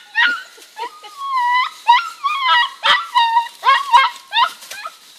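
German Shepherd puppy whining and yelping in a quick string of about nine high-pitched cries, several of them bending down in pitch.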